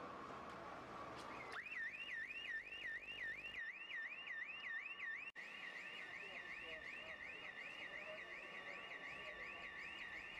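Car alarm wailing in a rapid electronic warble, its pitch sweeping up and down about four times a second. It starts about a second and a half in, after a steady high tone, and drops out for an instant about five seconds in before going on.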